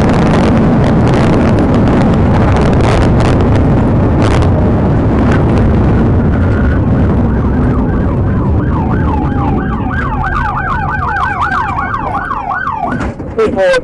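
Police cruiser at highway speed, heard from inside: loud wind and road noise that eases as the car slows. Its siren's fast up-and-down yelp comes through from about eight seconds in and stops near the end, followed by a few sharp knocks.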